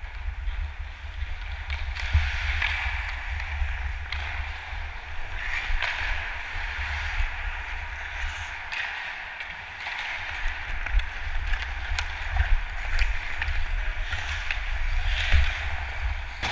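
Hockey skate blades carving and scraping on rink ice in repeated swells as the skater strides and turns, over a low wind rumble on a helmet-mounted camera's microphone. Sharp clicks of sticks and puck come now and then.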